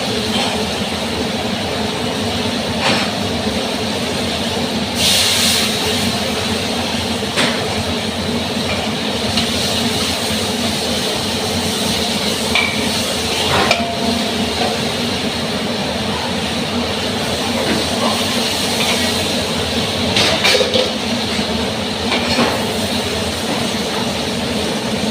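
Stir-fry cooking: a steady rushing noise, with a utensil clinking against the pan now and then.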